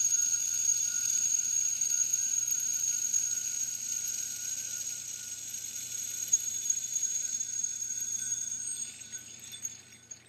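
Blue metal ball-bearing yo-yo sleeping at the end of its string: a steady high-pitched whine from the spinning yo-yo, fading as it slows and dying away near the end as it spins out.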